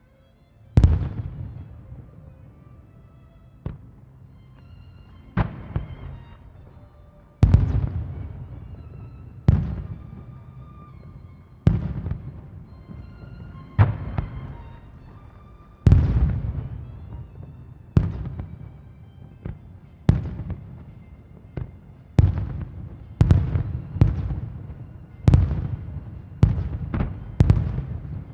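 Aerial fireworks shells bursting one after another, each a sharp bang with a long rumbling echo that trails off. The bursts come about every two seconds and come faster near the end.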